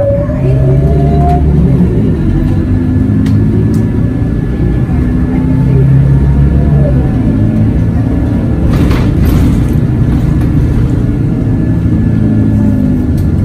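Scania K94UB bus's diesel engine heard from inside the passenger cabin, driving under power with a rising whine in the first second or so as it pulls away. It then runs steadily, with the engine note changing about six seconds in and a brief rattle about nine seconds in.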